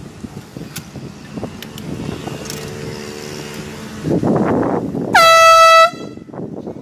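An air horn blasts once, loud and about three-quarters of a second long, a little past five seconds in. A loud rush of noise comes just before it.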